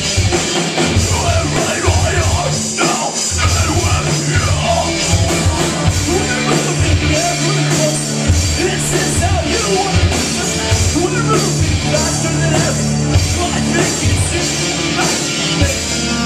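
A live rock band playing loud: electric guitars, bass guitar and drums with a singer's vocals over them.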